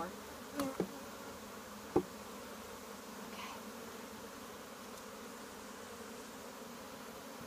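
Honeybee colony humming steadily around an opened hive. A few faint clicks in the first second and a single sharp knock about two seconds in.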